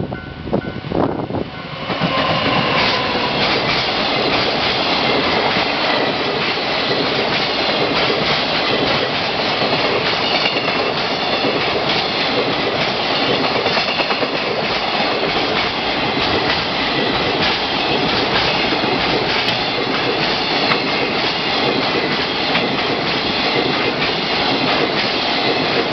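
Long container freight train hauled by an EF200 electric locomotive passing close by at a level crossing: a loud, steady rumble of wheels with rapid clickety-clack over the rail joints, coming in about two seconds in.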